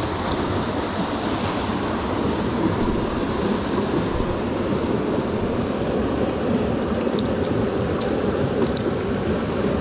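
Small creek's water rushing steadily.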